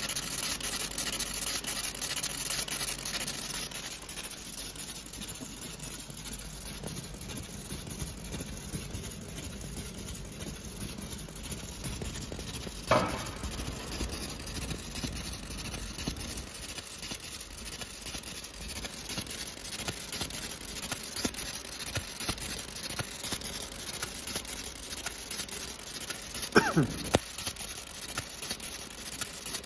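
A 60 W fiber laser cutting 0.15 mm stainless steel sheet: a steady crackling hiss made of many fine rapid ticks as the beam burns through the metal, louder for the first few seconds. Two short sliding tones stand out, one about halfway through and one falling in pitch near the end.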